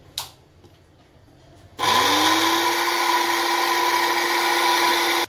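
A sharp click, then about two seconds in an electric food chopper starts: its motor quickly whines up to speed and runs steadily, chopping cooked chicken into small pieces.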